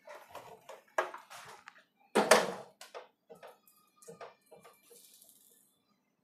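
Hard plastic knocking and clattering as the water purifier's removed plastic cover is handled and set down: a sharp knock about a second in, a louder one just after two seconds, then several lighter taps.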